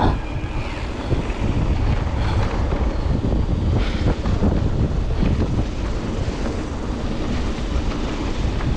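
Wind buffeting the microphone on a fast mountain-bike descent, with the tyres rumbling over the dirt trail and a few short knocks and rattles from the bike.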